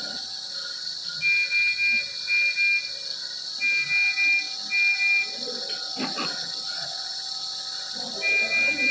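Medical monitor alarm beeping in the high-priority pattern: short high beeps in a three-then-two rhythm, played twice, then a long pause before the pattern starts again near the end. This pattern calls for immediate attention. A steady hiss runs underneath.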